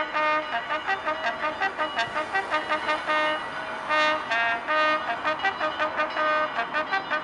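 Solo military trumpet sounding a ceremonial call: quick runs of short, tongued notes broken by a few held notes, played during a salute.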